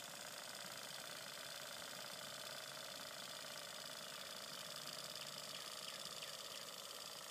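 Small Wilesco D-52 toy steam engine running steadily in a radio-controlled model boat, a rapid even mechanical beat.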